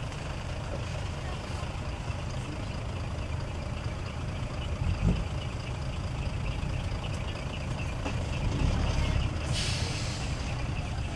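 Heavy truck's diesel engine running steadily, with a brief thump about halfway and a short hiss of released air, like an air-brake release, a little before the end.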